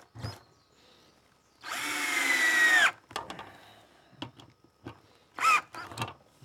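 Cordless drill driving a wood screw into a 2x4: one burst of about a second, the motor whine sagging slightly in pitch as the screw drives in, then a brief second burst of the drill near the end.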